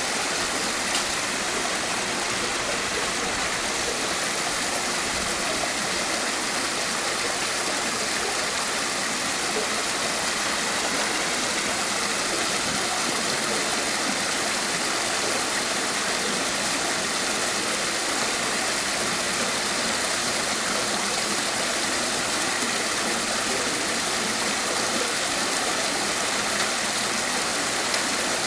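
Swimming pool waterfall running: a steady rush of water spilling and splashing into the pool.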